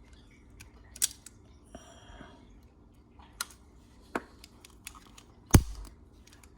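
Pliers crimping a wire end into a small metal alligator clip: a few separate sharp metallic clicks, the loudest, with a heavier knock, about five and a half seconds in.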